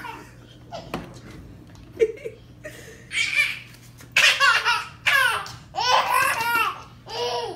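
A baby laughing in four bouts of belly laughter, starting about three seconds in. A short sharp tap sounds about two seconds in.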